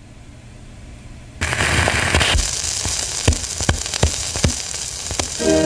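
Stylus of an Audiotronics 304A record player set down on a spinning 78 RPM shellac record about a second and a half in. Surface hiss and crackle come from the lead-in groove, with a sharp pop repeating about every three-quarters of a second. The record's band music starts just before the end.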